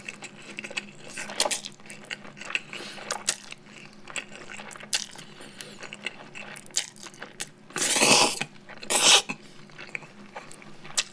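A person slurping and chewing spicy cold mixed noodles (bibim-myeon), a run of small wet mouth sounds with two loud, long slurps about two-thirds of the way through.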